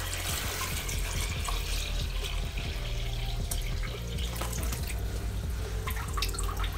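Water being poured into the rear chamber of a Fluval EVO 13.5 glass aquarium, splashing and trickling steadily, over a low steady hum.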